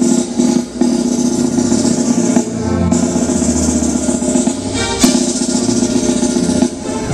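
Live rock band playing an instrumental passage with drums over sustained chords, with cymbal crashes about three seconds in and again about five seconds in.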